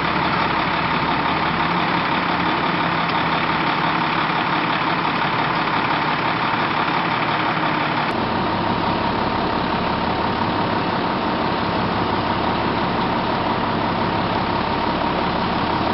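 Fire truck engine running steadily at the scene: a constant drone with a faint steady whine over it. The sound shifts slightly about eight seconds in.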